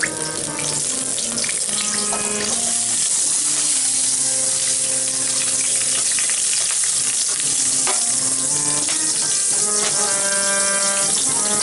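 Green chilies frying in hot oil in a steel kadai: a steady sizzle that builds up over the first couple of seconds.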